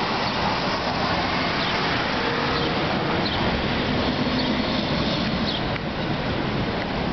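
Steady rushing outdoor noise of a storm brewing, with a few short, high bird chirps.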